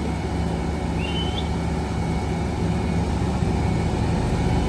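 Ten-wheeled dump truck's diesel engine running steadily with a low, even drone. A short rising high chirp about a second in.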